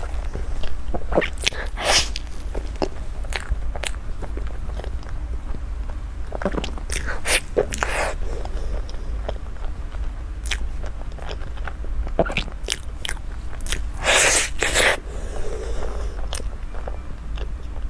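Close-miked eating: bites and chewing, with scattered sharp crunching clicks that come in denser clusters about two, seven to eight and fourteen seconds in. A steady low hum runs underneath.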